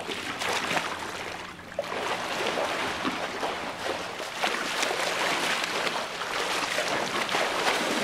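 Water splashing from a swimmer doing front crawl in a pool, arms striking the water with each stroke. The splashing is continuous, with a short lull about one and a half seconds in.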